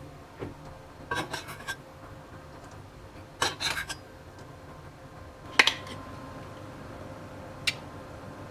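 Dishes and utensils clinking and clattering in a kitchen: two short runs of rattling knocks, then two single sharp clinks, over a faint steady hum.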